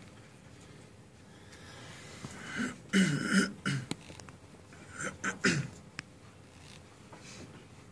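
A person coughing and clearing their throat in two short bouts, about three and five seconds in.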